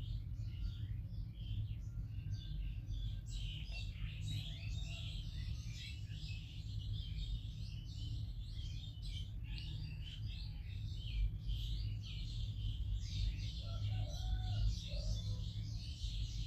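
Many small birds chirping and twittering continuously, with a steady low hum underneath.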